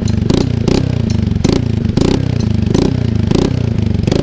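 TVS Ntorq 125 scooter's single-cylinder engine revved in quick repeated throttle blips through a double-barrel Akrapovic-type aftermarket exhaust on a bend pipe. It goes at about two to three blips a second, each with a sharp crack and the revs falling back between.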